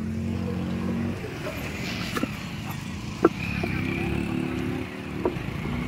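Motorcycle engines running steadily at low revs as the bikes ride through a shallow, rocky stream, with a few sharp knocks in between.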